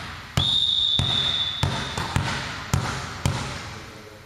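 A volleyball bounced repeatedly on a gym floor, about twice a second, each bounce ringing on in the hall. A single long referee's whistle blast, held for nearly two seconds, begins about half a second in and signals the serve.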